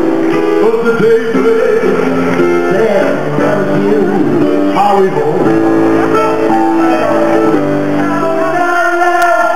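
Live band music with singing, loud and sustained; near the end the low accompaniment stops, leaving a high held note.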